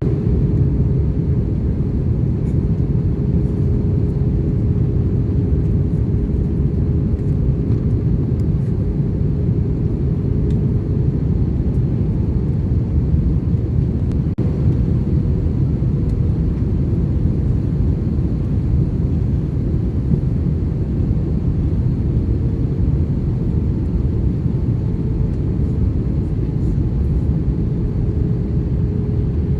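Airbus A321 airliner cabin noise in flight: a steady, dense low rumble of engines and airflow, with a faint steady hum.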